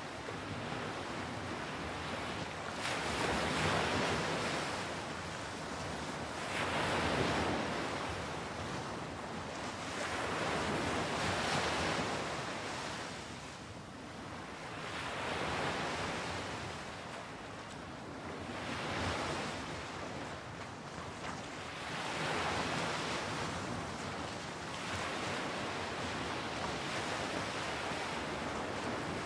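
Ocean surf: waves washing in, the rush swelling and fading about every four seconds.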